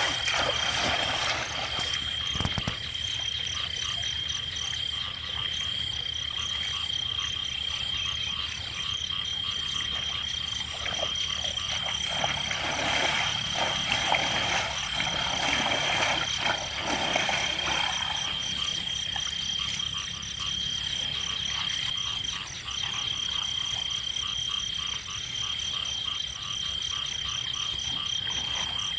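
Frogs croaking in a steady chorus, with a continuous high-pitched trill over it. From about a third of the way in until past the middle, water sloshes and splashes as bamboo fish traps are worked in the shallows.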